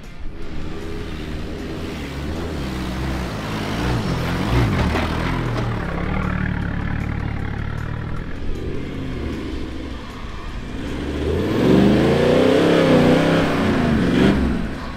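Four-wheel-drive engines revving as they pull through soft sand. Near the end a Toyota LandCruiser ute comes up the track, its engine swelling to the loudest point, the revs rising and then easing off.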